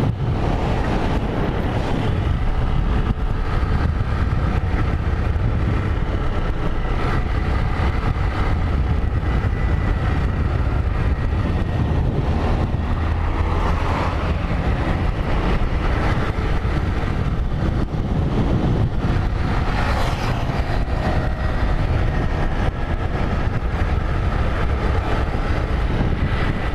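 Motorcycle being ridden, its engine running steadily under a continuous low rumble.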